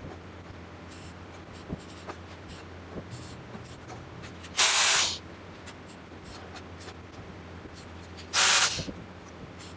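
TIG welding torch hissing in two short bursts of about half a second each, roughly four seconds apart. Faint ticks and scraping in between.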